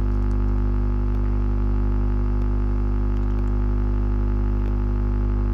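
Steady electrical mains hum: a low, unchanging drone with a stack of overtones above it.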